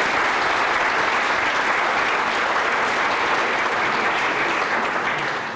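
Audience applauding steadily in a hall, the clapping dying away near the end.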